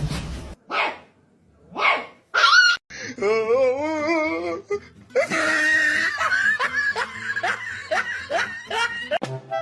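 An animal's voice: three short rising-and-falling calls, then one long wavering cry lasting about a second and a half. Music with laughter follows in the second half.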